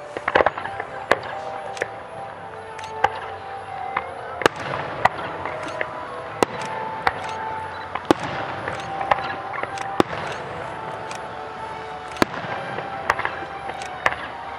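Aerial fireworks display: a quick cluster of bangs just after the start, then sharp single reports from launches and bursting shells every half second to a second.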